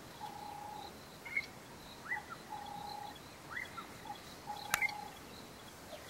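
A bird calling repeatedly: level whistled notes of about half a second, alternating with short notes that rise and fall. A sharp click about three-quarters of the way through.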